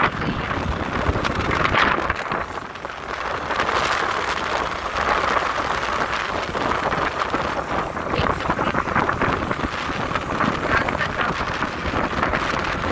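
Wind buffeting the microphone of a phone carried on a moving two-wheeler, with road and motor noise underneath.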